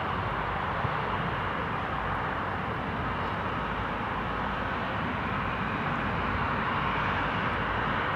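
Jet airliner engines running steadily, with a faint thin whine above the roar.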